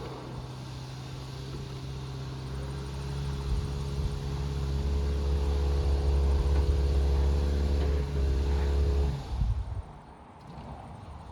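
A motor vehicle's engine running steadily and growing louder, then cutting off abruptly about nine and a half seconds in.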